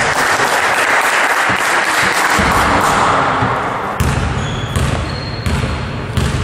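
A basketball bounced on the wooden gym floor by a free-throw shooter before his shot, several bounces a bit under a second apart in the second half. Before that, a loud, even rush of noise fills the hall.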